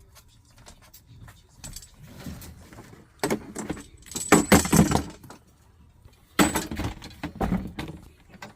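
Metal clinking and rattling in two bursts, about three seconds in and again about six and a half seconds in, like tools or small parts being handled.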